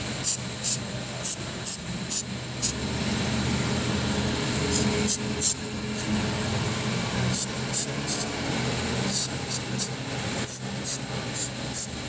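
Aerosol can of throttle body cleaner sprayed onto an electronic accelerator pedal's sensor in many short hissing squirts, mostly in quick groups of two or three. A low steady hum runs underneath.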